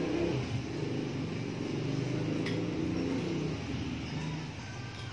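A low motor-like hum that fades after about four seconds. Over it come a few light plastic clicks as a ring light is handled and fitted onto its tripod stand.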